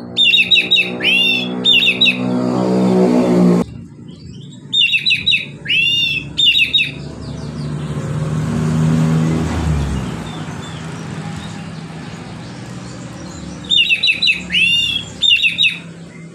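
Oriental magpie-robin singing in relaxed, open full song: three loud phrases of quick repeated notes and sweeping whistles, at the start, about five seconds in and near the end. Low engine noise underneath rises and cuts off suddenly in the first few seconds, and a vehicle swells past in the middle.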